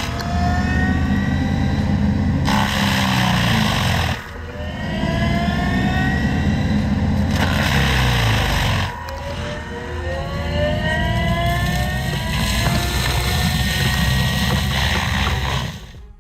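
ASV RT120 compact track loader running its Grizzly forestry mulcher. The engine rumbles under a whine that rises in pitch over a few seconds, four times in a row, with brief dips in between.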